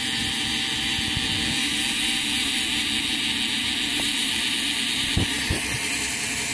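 Small DC motors running steadily with an even high whirr while drawing about a third of an amp from a 3.7 V LiPo through a boost and step-down converter.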